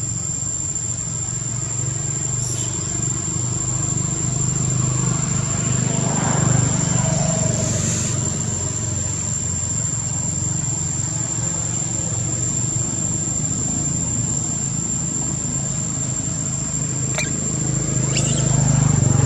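Steady low hum of motor vehicles running nearby, swelling about six seconds in and again near the end, with a thin, steady high-pitched whine over it.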